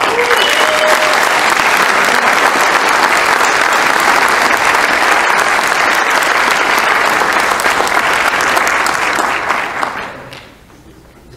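Audience applauding, steady for about nine seconds, then dying away about ten seconds in.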